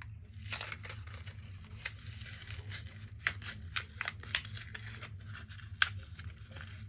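A plastic fuse pack being worked open by hand to get a fuse out: crinkling and rustling with irregular sharp clicks and snaps.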